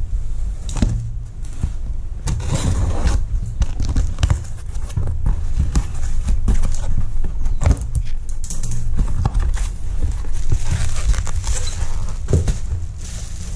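Cardboard box being cut and pulled open with scissors, then a plastic-wrapped pack lifted out: scraping, rustling and many small knocks, over a steady low rumble.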